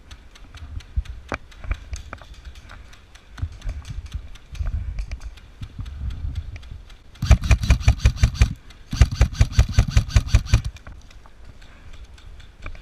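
Airsoft electric gun firing two full-auto bursts in quick succession, each about a second and a half long at roughly ten shots a second, with softer thuds of movement before them.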